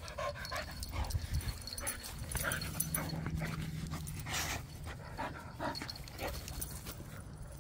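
A dog panting and breathing hard while tugging on a ball toy.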